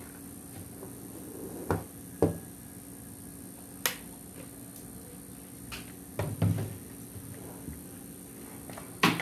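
A few separate knocks and taps of things being handled and set down on a hard tabletop, the loudest near the end, over a steady low hum.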